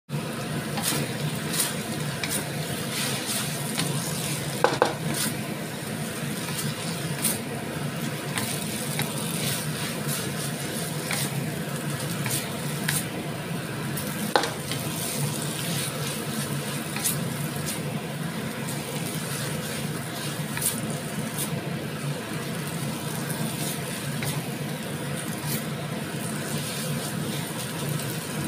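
Yellow noodles with vegetables sizzling in a steel wok as a wooden spatula tosses and scrapes them, with scattered sharp knocks of the spatula against the wok over a steady low hum. The noodles are being stir-fried until dry.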